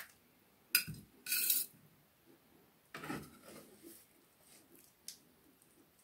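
Metal serving utensils clinking and scraping on a foil-lined baking tray and plate while portions of a baked potato dish are served: a sharp clink just before a second in, a short scrape right after it, and a softer scrape around three seconds in.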